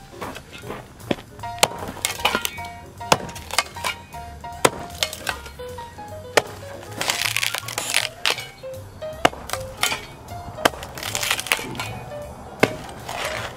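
The toothed steel blade of a shovel chopping into a wooden 2x6: sharp impacts about once a second with cracking and splintering of the wood, over background music with a melody.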